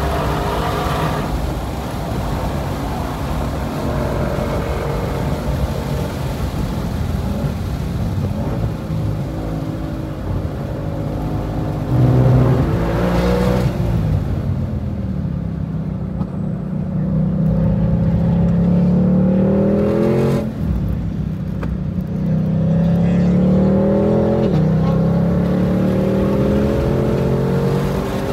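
2020 Shelby GT500's supercharged 5.2-litre V8 heard from inside the cabin, pulling at full throttle with the pitch climbing, over wind and tyre noise. It falls away under braking about twelve to fourteen seconds in, then climbs hard again, dropping sharply at upshifts about twenty and twenty-four seconds in.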